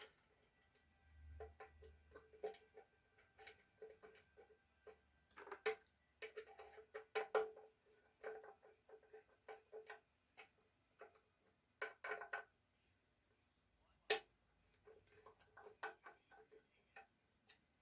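Scattered, irregular light clicks and metallic clinks of a metal bracket, screws and a screwdriver being handled while fitting the shield-and-light bracket onto a bench grinder; some clinks ring briefly.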